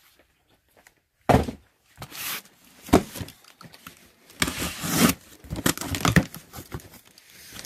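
Cardboard cartons being handled: a box set down with a thump about a second in, then a box cutter slitting the packing tape and the flaps being torn open.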